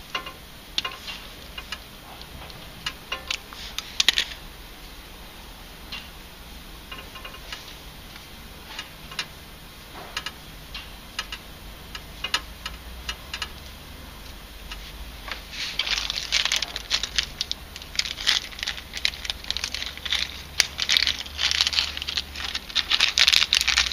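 Scattered clicks and taps from wire strippers and small parts being handled, then, about two-thirds of the way through, the crinkling of a small clear plastic bag of cable fittings being opened and rummaged through, getting louder toward the end.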